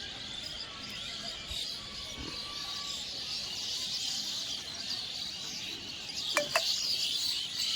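Many birds chirping at dusk over a steady, dense high-pitched chorus, with two sharp falling calls about six and a half seconds in.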